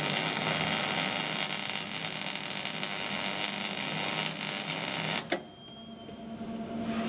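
MIG welding arc on steel hull plate, a steady crackling hiss that stops abruptly about five seconds in as the welder lets off the trigger. A low steady hum carries on after.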